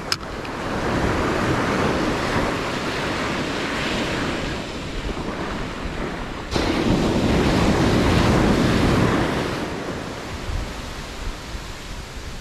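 Ocean surf washing up the beach, with wind buffeting the microphone. A wave surges in suddenly about halfway, stays loud for a few seconds and fades toward the end; a short click comes right at the start.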